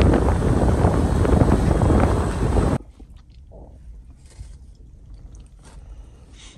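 Strong wind buffeting the microphone in a heavy, gusting rush, which cuts off abruptly about three seconds in. What follows is the quiet of a vehicle cab: a faint low hum with small clicks and rustles of gear being handled.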